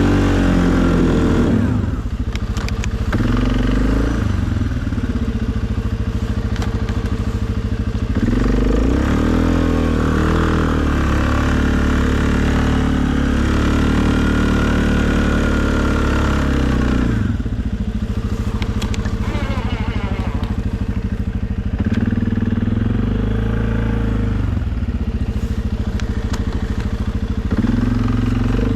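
2020 Suzuki KingQuad ATV engine working under load while plowing snow, its revs rising and falling. It revs up about eight seconds in, holds high for several seconds, then drops back.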